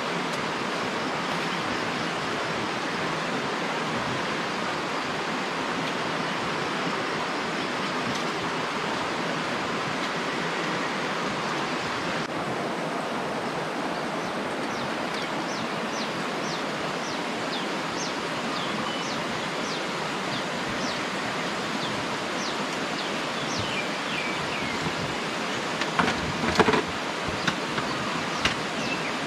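Steady rushing of a shallow rocky river flowing past. Short high chirps come and go through the second half, and a few sharp knocks near the end as camping gear is handled.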